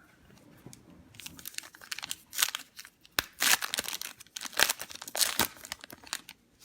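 Crinkly foil wrapper of a Donruss Optic trading-card pack being torn open and crumpled: a run of sharp crackling rips beginning about a second in, loudest in the middle and dying away near the end.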